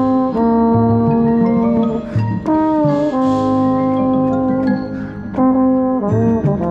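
Marching band brass playing a slow passage: a trombone holds long notes over sustained low brass, sliding into a new note twice.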